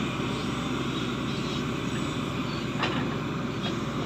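Shantui ME210 excavator's diesel engine running steadily under load while the bucket digs into wet mud, with two faint short knocks about three seconds in.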